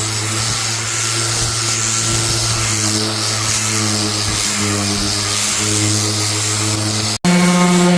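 Electric sander running steadily against a piece of wood, a loud even hum with a hiss over it. About seven seconds in it cuts off for an instant and comes back at a slightly higher pitch.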